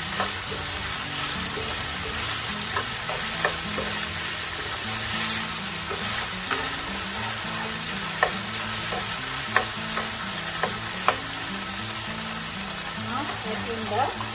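Chicken slices, wood ear mushrooms and minced garlic sizzling in oil in a nonstick frying pan, stirred with a spatula that scrapes and taps sharply against the pan every few seconds.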